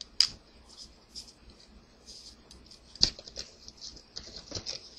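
Trading cards handled by hand, sliding and flicking against each other: light scratchy clicks and rustles, with two sharper snaps, one just after the start and one about three seconds in.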